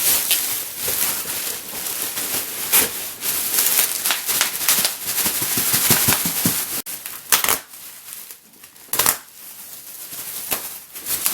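Cardboard and plastic packaging being handled and opened, rustling and crinkling continuously, then quieter with a couple of sharp knocks.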